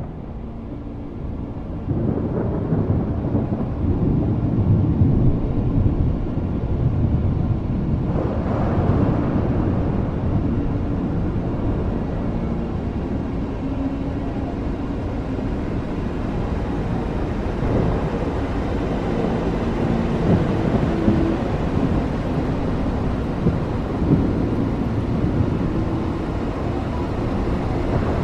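Rainstorm: steady rain with deep rolling thunder, the rumble swelling about two seconds in.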